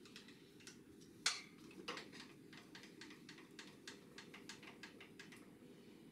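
A run of small, sharp clicks, about three or four a second, with a louder click a little over a second in and another just before two seconds; they fade out near the end.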